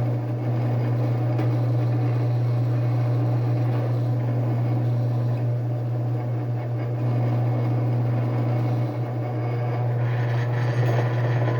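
Drill press running steadily with a strong low motor hum while drilling a small pilot hole through a steel plate.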